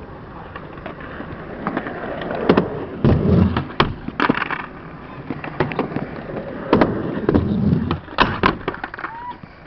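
Skateboard wheels rolling on a concrete skatepark surface, with sharp clacks of the board popping and landing. It comes in two runs: rolling with clacks about two to four and a half seconds in, then again from about seven seconds, ending in two clacks near eight and a half seconds as the board meets a low metal rail.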